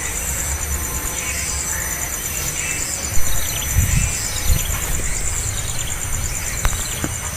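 Steady high-pitched insect drone, pulsing rapidly, over a low rumble, with a few faint short descending bird chirps and a couple of soft knocks around the middle.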